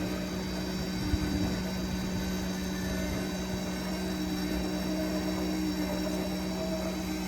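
Steady mechanical drone of a running engine or machine, one constant hum throughout, with a single brief knock about a second in.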